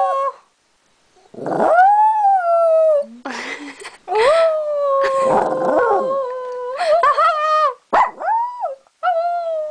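A Maltese dog howling, 'singing' in a run of wavering, pitched howls that rise and then fall. There is a howl of about a second and a half, then a long one of more than three seconds, then two shorter ones near the end.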